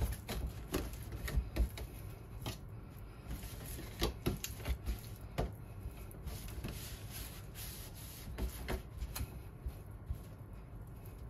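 Hands rubbing and pressing seasoning into a raw block of beef on a small metal tray, with scattered light clicks and taps as the meat and tray shift.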